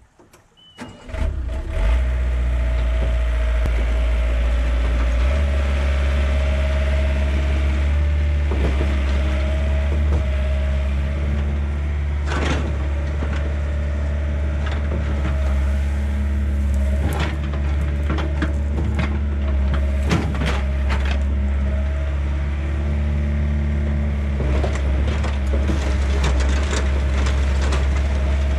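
Diesel engine of a 1990 Yanmar B50 mini excavator starting about a second in, then running steadily and stepping up in speed a few seconds later. Occasional knocks come as the bucket works and the tracks move.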